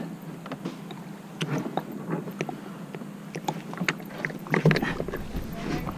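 Plastic hull of a Pelican kayak knocking and bumping as the paddler shifts and handles the paddle at the bank: scattered small knocks, with a louder thump about four and a half seconds in.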